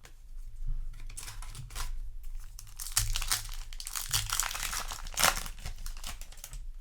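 Foil wrapper of a Yu-Gi-Oh! trading-card booster pack crinkling and tearing as it is ripped open by hand, in a run of dense crackles that is loudest in the middle.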